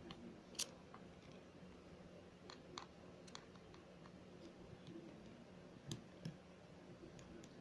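Faint, scattered clicks and taps of a small precision screwdriver working on the screws inside an opened iPhone, about seven or eight in all, irregularly spaced.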